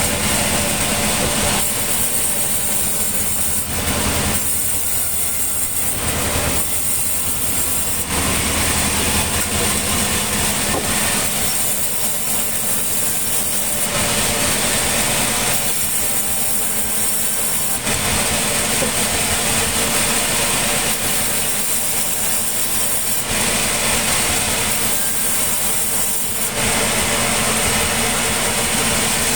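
Sawmill machinery running steadily, an engine-driven saw, its tone shifting every couple of seconds.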